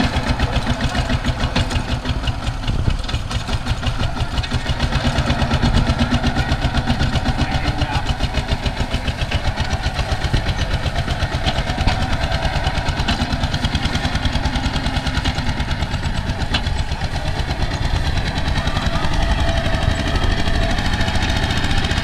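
Single-cylinder diesel engine of a two-wheel walking tractor running under load as it pulls a trailer of rice sacks, with a fast, even beat of firing pulses throughout.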